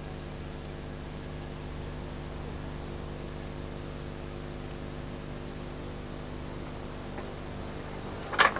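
Steady electrical hum with background hiss, then a sharp wooden knock near the end as the lychgate is pushed open.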